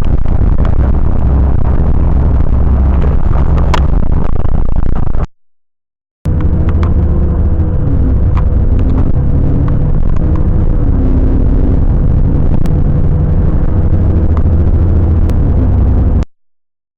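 Loud, low rumbling street noise of road traffic. It cuts off sharply about five seconds in, returns a second later with a steady hum and a wavering tone over it, and cuts off again near the end.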